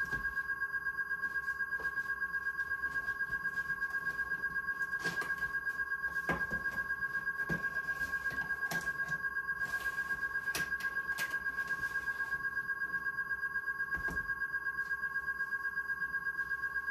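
Elegoo Mercury wash station running its wash cycle: a steady two-tone electric whine with a fast, even warble from the motor spinning the impeller in the IPA tank, with a few faint clicks.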